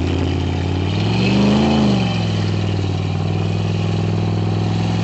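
SUV engine running under load on a muddy uphill climb in two-wheel drive. It revs up about a second in, falls back within about a second, then holds a steady drone.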